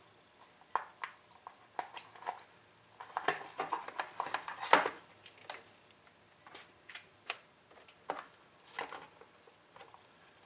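Irregular small clicks, taps and rustles of hands working an ATV's ignition-switch wiring and plastic parts, busiest in the middle.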